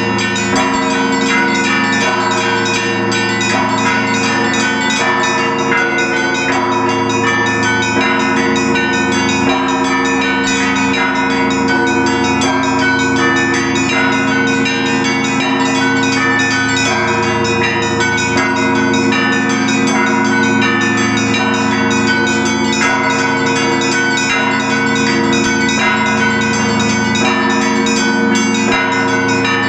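Russian Orthodox church bells of a cathedral bell tower ringing together in a continuous peal, with small bells chiming in quick patterns over the steady hum of the large bells.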